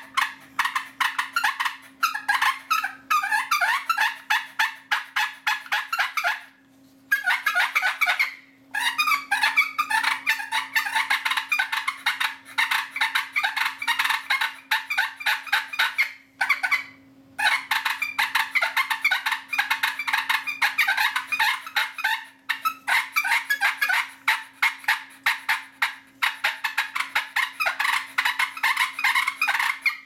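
Wooden push-button turkey call worked in long runs of quick purring, clucking notes imitating a turkey's fighting purr. The runs break off briefly about seven, nine and seventeen seconds in.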